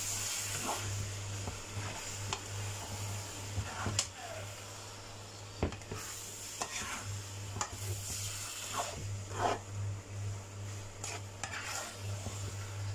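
Rice noodles sizzling in a nonstick wok as they are tossed and stirred with a spatula, with irregular scrapes and knocks of the spatula against the pan. A steady low hum sits underneath.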